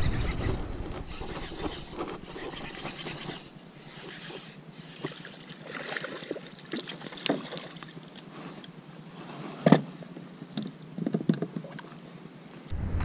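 Water splashing as a hooked largemouth bass thrashes beside a plastic sit-on-top kayak and is landed by hand, with knocks of handling on the hull and wind on the microphone. One sharp knock about ten seconds in is the loudest sound.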